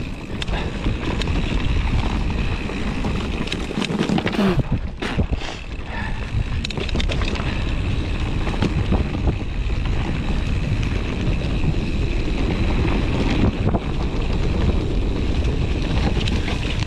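Wind buffeting an action camera's microphone as a mountain bike rolls downhill on a dirt singletrack, building up in the first second or two, with steady tyre noise and frequent clicks and rattles from the bike over bumps.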